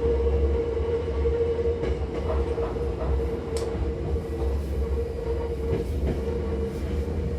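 Hankyu electric commuter train running on the track, heard inside the passenger car: a steady low rumble with a constant hum and occasional faint clicks from the wheels and rails.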